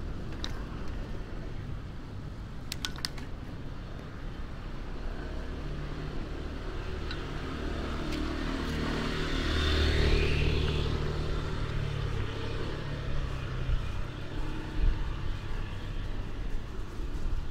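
A motor vehicle passing on the street, its engine and tyre noise building to its loudest about ten seconds in and then fading, over steady low traffic rumble. A few sharp clicks come about three seconds in.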